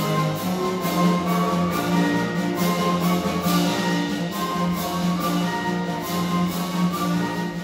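School concert band playing, with clarinets and saxophones holding sustained notes over a steady beat of light percussion strokes.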